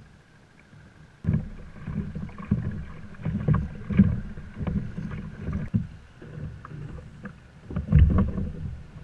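Choppy water slapping and sloshing against a plastic fishing kayak's hull, starting about a second in, with scattered small knocks and clicks.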